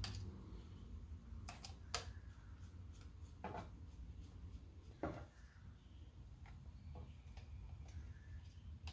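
Scattered light clicks and knocks of a metal computer drive cage and parts being handled, over a faint steady low hum.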